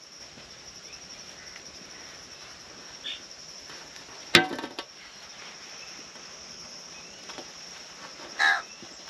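Steady high-pitched drone of insects, like crickets, in the open air, with a sharp click about four seconds in and a brief call near the end.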